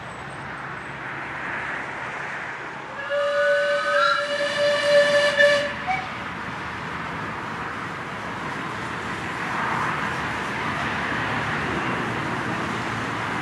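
Miniature-railway steam locomotive whistle sounding one long blast of about three seconds, ending with a brief upward blip, over steady background noise.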